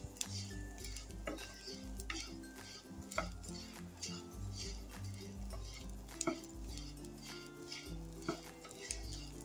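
Wooden spatula stirring and scraping puffed gond (edible gum) roasting in ghee in a non-stick frying pan, with irregular clicks and taps against the pan, over soft background music.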